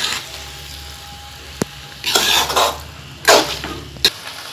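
Spatula stirring and scraping penne pasta around a metal pan, in three broad scraping strokes with a couple of sharp taps against the pan, over a low steady hum.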